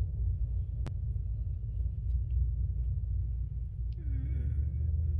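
Steady low rumble of a car, heard from inside the cabin, with a single sharp click a little under a second in and a brief faint voice about four seconds in.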